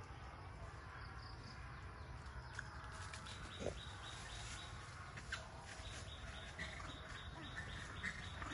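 Faint forest ambience: a steady low rumble with a few faint bird chirps and scattered small clicks and snaps.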